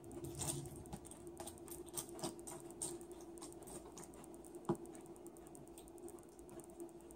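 Spoon clicking and scraping in a bowl of cereal while someone eats, a run of small irregular clicks with one sharper knock of the spoon on the bowl about two-thirds of the way through. A faint steady hum underneath.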